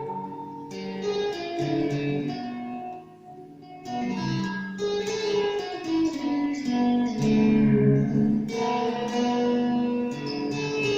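Revelation RJT60 electric guitar played through a Vox Tonelab modelling processor: plucked notes and chords ringing out, with a few sliding bends in pitch. It drops quieter for a moment about a third of the way in, then picks up again.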